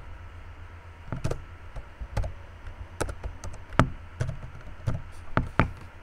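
Computer mouse clicking about ten times at irregular intervals over a steady low hum.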